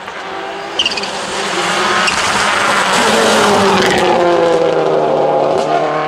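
Subaru Impreza WRC rally car's turbocharged flat-four engine at full effort as it rounds a tarmac bend and accelerates away, its pitch rising steadily as it pulls through the gears. There is a brief high squeal about a second in and a few sharp cracks later on.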